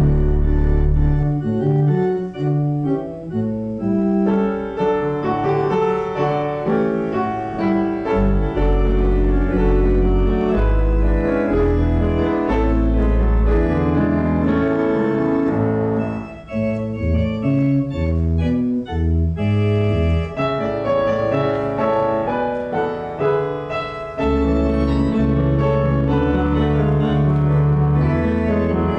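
Organ music: a slow piece of sustained chords over long, deep held bass notes, with a brief break about sixteen seconds in.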